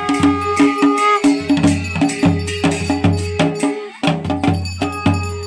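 Traditional folk processional music. A drum beats a quick steady rhythm of about four to five strokes a second under a held melody line, with sharp clicking percussion on top. The beat drops out briefly about four seconds in.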